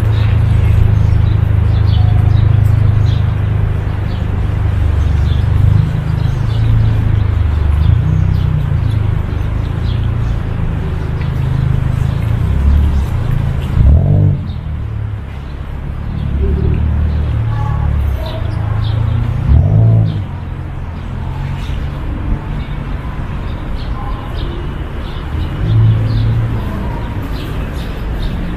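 Outdoor city ambience dominated by a low, uneven rumble, with small birds chirping here and there. A few dull thumps stand out, the loudest about halfway through and again about two-thirds in.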